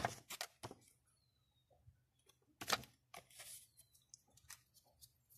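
Stiff paper inserts of a CD package being handled: a quick flurry of crisp crackles and clicks at the start, another sharp crackle just under three seconds in with a short rustle after it, then a few light ticks.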